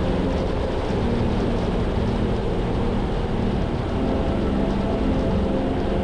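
Car driving at steady speed, heard from inside the cabin: a steady engine hum over tyre and road noise. The engine note dips briefly about four seconds in, then picks up again.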